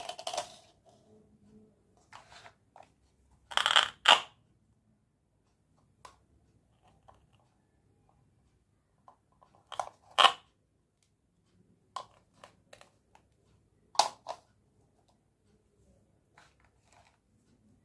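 Small toy tableware and food pieces being handled and set down, giving short clicks and clatters in scattered bursts, the loudest a double clack about four seconds in and another about ten seconds in.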